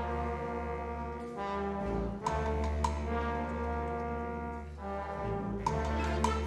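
Concert wind band playing held, brass-heavy chords over a deep tuba bass. The chords change with short accented strikes about two seconds in and again near the end.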